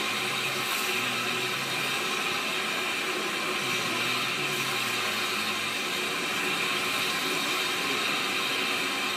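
SECR P class 0-6-0 tank locomotive moving slowly with a train of carriages, with a steady hiss and no distinct exhaust beats.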